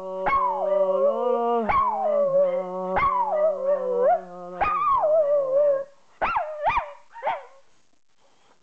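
Small Jack Russell–Yorkshire terrier cross dog howling with her head raised: a run of long, falling howls with brief breaks, over a lower, steadier held note. About two-thirds of the way through come two short yelping calls and a smaller one.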